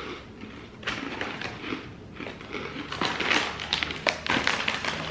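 Crunchy sesame breadsticks being chewed, with a crisp snack bag crinkling as it is handled and shaken, the crinkling thickest in the last two seconds.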